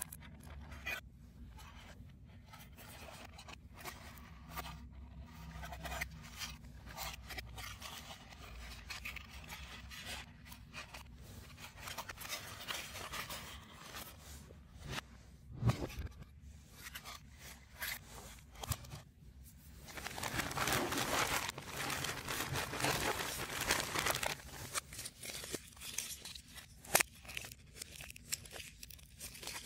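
3D puzzle pieces being handled and assembled: an irregular run of small clicks, scrapes and tearing sounds, with a denser stretch of scraping and tearing about twenty seconds in.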